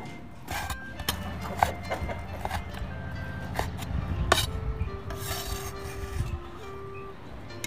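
Cleaver chopping cured pork on a wooden chopping board: a handful of sharp chops spread through the first half or so, with the blade rubbing over the board. Background music with held notes runs under it.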